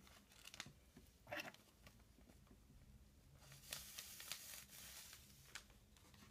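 Near silence with a few faint, brief rustles, about one and a half seconds in and again from about three and a half to five and a half seconds in: synthetic Ice Dub fibres being pulled out and handled for fly tying.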